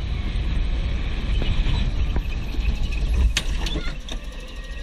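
Go-kart running at speed on a track: a steady low rumble from the kart, with a few short squeaks and clicks about three and a half seconds in as it turns through a tight corner.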